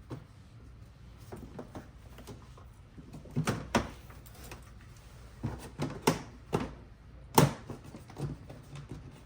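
Plastic air intake shroud being handled and seated back into place in the engine bay: a scatter of hard plastic knocks and clicks, the loudest about seven seconds in.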